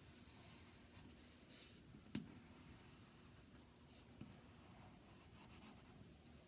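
Faint scratchy strokes of lines being marked by hand on a thin wood panel, with one sharp tap about two seconds in.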